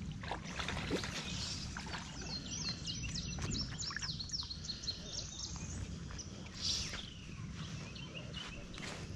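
A songbird sings a quick run of about eight short high notes a few seconds in, then gives another brief call, over a steady low outdoor rumble.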